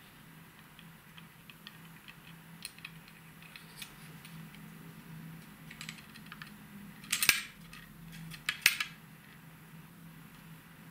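Handling noise from two trolling rods, a Kaida XP Boat Achab and a Black Hole Interceptor, held together in one hand: light scattered clicks of the blanks and metal guides touching, with two louder clacks a second and a half apart about seven seconds in. A faint steady hum runs underneath.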